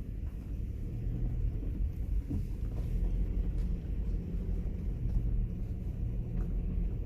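Subaru Forester driving on a dirt trail: a steady low rumble of its flat-four engine and tyres, with a few light knocks.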